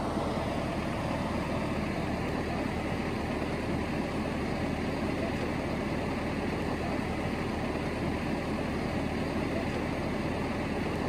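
Farm tractor's diesel engine idling steadily, a constant low hum.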